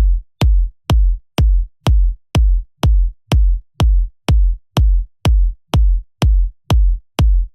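Electronic dance track intro: a lone drum-machine kick drum beating alone and steadily, about two hits a second, each a sharp click with a deep thump.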